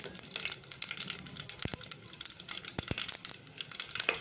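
Mustard, cumin and fennel seeds crackling in hot oil in a steel pot: a dense patter of small pops, with a few sharper pops about two thirds of the way through.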